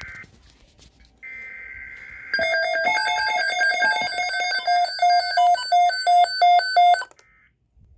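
A weather radio receives a buzzy digital alert-header burst of about a second. Then several weather radios sound their alert beeps together, a loud jumble of pulsing electronic tones at different pitches for about five seconds, which cuts off suddenly near the end.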